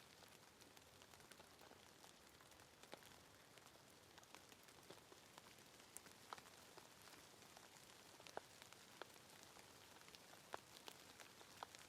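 Faint steady rain: an even hiss of falling rain with scattered individual drops ticking close by.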